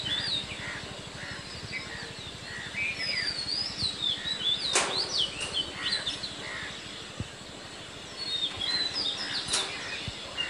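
Small birds chirping and twittering in quick, repeated high notes, with two sharp, louder sounds about five and nine and a half seconds in.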